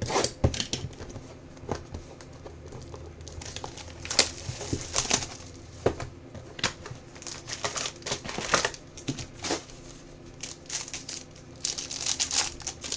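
Packaging of a sealed box of football trading cards crinkling and tearing as it is opened by hand, in short, irregular crackles and clicks.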